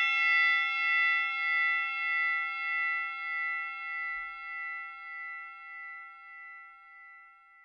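A bell, struck once just before, ringing out with several clear tones. Its sound wavers in loudness as it slowly fades, dying away near the end.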